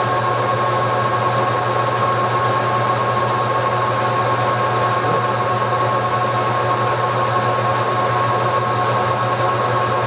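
Metal lathe running steadily, spinning a rifle barrel while its freshly reamed chamber is polished with abrasive paper; a constant whine over a low hum.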